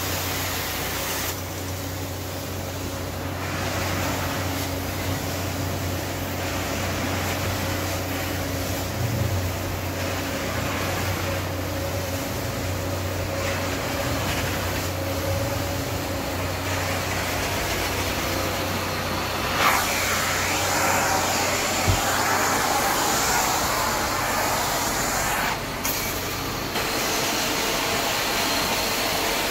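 Carpet extraction machine running: a steady motor hum under a rushing suction hiss that shifts in strength every few seconds and grows louder and brighter about two-thirds of the way through.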